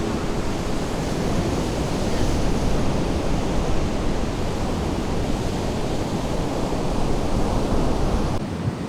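Sea surf washing onto a sandy beach: a steady rushing noise with no breaks, mixed with some wind.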